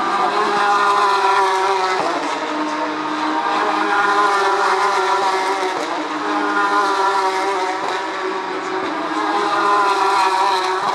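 Porsche 911 GT3 Cup race cars' flat-six engines at racing speed passing one after another, the engine note rising and falling and swelling in waves about every three seconds.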